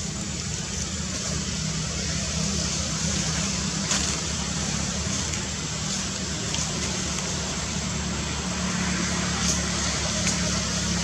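Steady outdoor background noise: a low rumble under an even hiss, with a few faint clicks.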